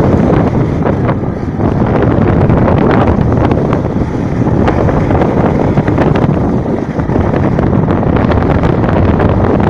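Heavy rain pouring down, a loud steady rush with many small drop impacts, and wind rumbling on the microphone.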